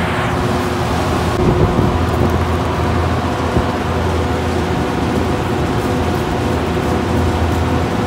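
Supermarket refrigeration rack's condenser fans running: a steady rush of moving air over a low motor hum, with a few faint steady tones.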